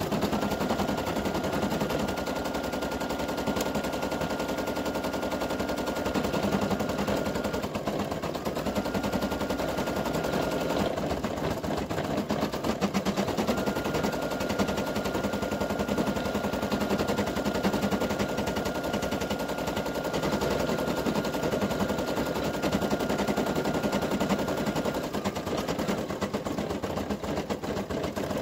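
Brother PE800 embroidery machine stitching: a rapid, steady needle clatter, with a thin high whine that drops out a few times and comes back.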